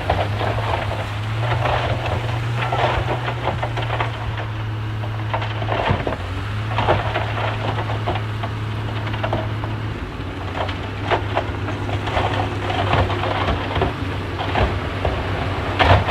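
Bulldozer diesel engine running under load with a steady low note that drops slightly about ten seconds in, over irregular crackling and clattering of soil and rocks being pushed.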